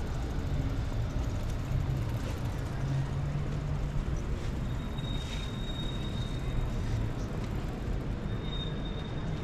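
Steady low rumble of city traffic, with a thin high tone held for about two seconds midway and again briefly near the end.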